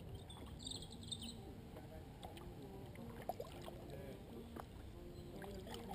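Canoe moving on a still river, with faint paddle knocks and water sounds. A faint tune of steady held notes that step from pitch to pitch runs underneath, and a short high chirp comes about a second in.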